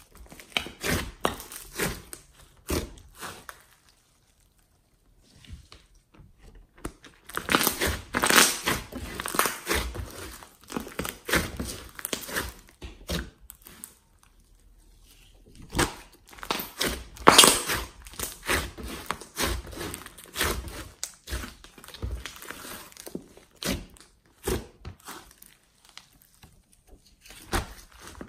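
Hands kneading, squeezing and stretching a large mass of glossy slime mixed with clay and glitter: sticky squelching with crackly pops of trapped air. It comes in irregular bursts with two brief pauses.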